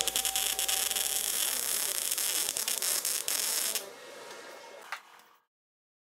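MIG welder arc crackling and sputtering steadily as a bead is laid on thin body sheet steel, a new rear quarter panel being welded in. The crackle stops just under four seconds in, leaving a fainter hiss before the sound cuts out.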